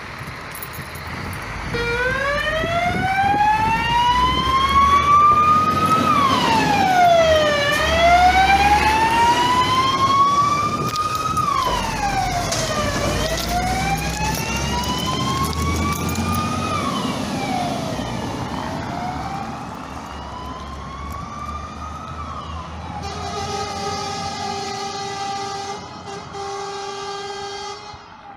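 Fire engine's siren on a wail, rising slowly and dropping quickly over and over, over the low rumble of the truck's engine, loudest as the truck passes and fading as it drives off. Near the end a steady horn sounds for several seconds.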